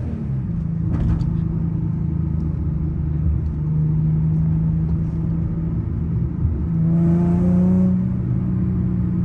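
Car engine and exhaust fitted with an added resonator, running steadily under way with a deep, even tone; the engine note rises briefly about seven seconds in and then settles. A single click about a second in.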